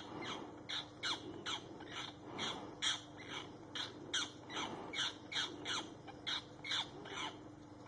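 A bird's harsh squawking calls, repeated rapidly at about two or three a second, each short call falling in pitch, over a faint steady hum.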